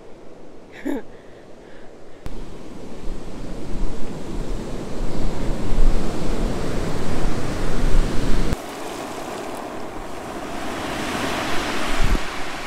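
Wind noise rumbling on the microphone on an open rocky shore, stopping abruptly partway through. Then surf washes up over a cobble beach, a steady hiss that swells near the end.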